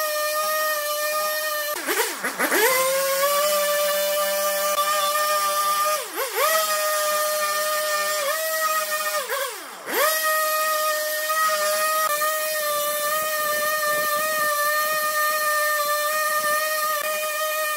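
Husqvarna two-stroke chainsaw running at high revs while cutting into a log. Its pitch dips sharply and climbs back three times, about two, six and ten seconds in, as the chain bites in and the throttle comes back on.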